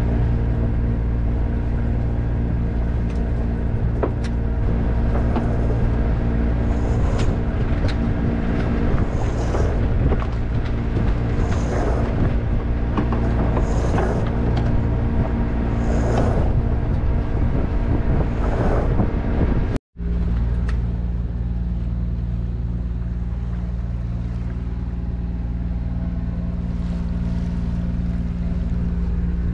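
Sailboat's engine running steadily while motor sailing through calm water. About two-thirds of the way in there is a brief break, after which the engine carries on at a slightly different, steady note.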